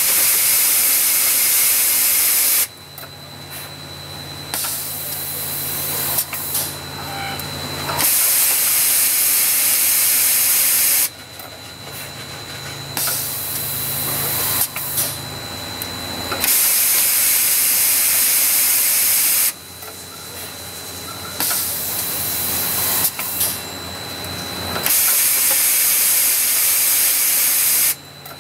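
Automated drilling and tapping machine for MIM parts cycling: a loud hiss like a compressed-air blast for about three seconds, then a quieter stretch of low motor hum, a high whine and clicks, the pattern repeating about every eight and a half seconds, four hisses in all.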